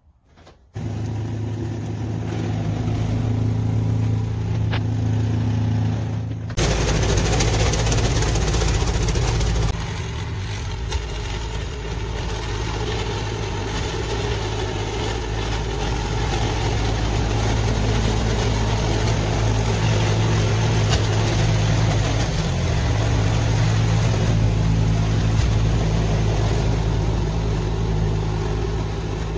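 Gas snowblower's small engine running steadily while clearing snow, with a broad rush of noise from the machine that gets louder about six seconds in.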